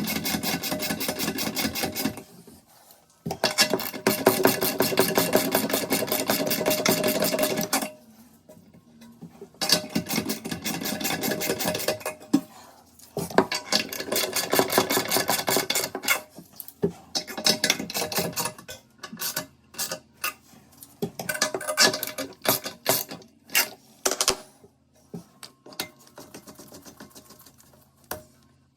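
Socket ratchet wrench clicking in quick runs of a few seconds each, with short pauses between, then slower scattered clicks near the end. It is tightening the toilet's tank-to-bowl bolts.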